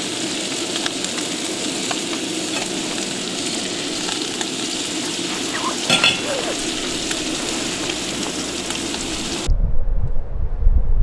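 Food frying in a pan on a gas camping stove, a steady sizzle, with a sharp metallic clink about six seconds in. The sizzle cuts off suddenly near the end, giving way to wind rumbling on the microphone.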